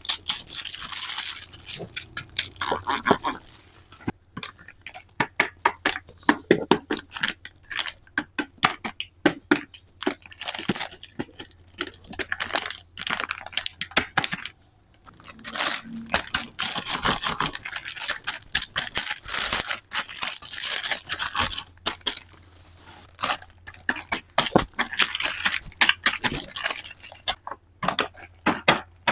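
Unboxing handling sounds of a toy car play set: packaging rustling and tearing, with many quick clicks and taps of small toy parts, in irregular clusters.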